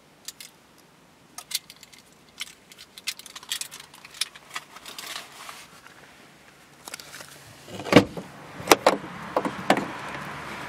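Car keys jangling on a keyring, with scattered small clicks. About eight seconds in comes a loud clunk and a few knocks as the car's driver's door is opened.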